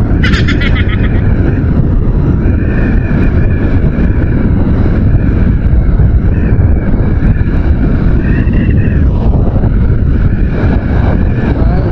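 Wind buffeting the microphone on a moving motorcycle, with the Honda XRM125 Fi's single-cylinder four-stroke engine running at cruising speed underneath; the engine note rises briefly about two-thirds of the way through.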